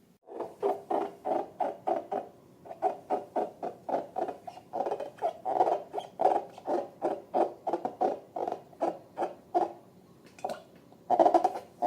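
Slime squelching as it is pressed and worked by hand, in short even squishes about three or four a second, with a brief pause and a longer, louder squish near the end.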